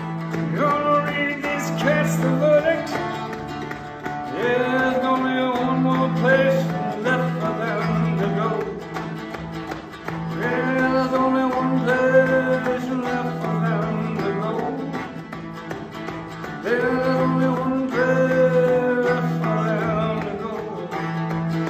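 Music: a song with guitar and singing, over a steady held low note.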